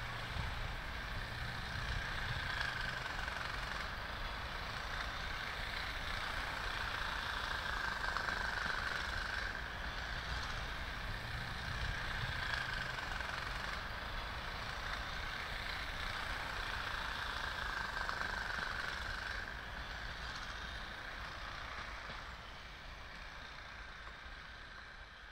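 Steady distant rumble of outdoor traffic and railway noise with a faint high hum, fading out near the end.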